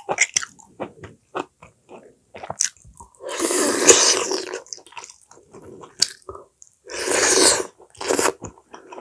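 Close-miked eating sounds of a person biting and chewing a piece of braised dried pollack (kodari-jjim). There are many small wet mouth clicks, and two louder, longer noisy bites come about three and a half and seven seconds in.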